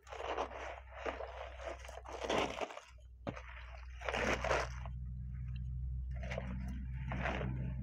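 Fresh mustard greens crunching and squeaking as bare hands knead and squeeze them in a plastic basin to soften them for pickling. It comes in short bursts, four strong ones in the first half and softer ones after, over a steady low hum.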